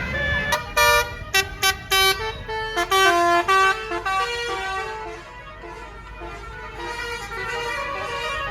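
Bus air horn of the Basuri multi-tone 'telolet' type, playing a quick tune of short, loud notes that jump in pitch, then a softer run of notes from about five seconds in.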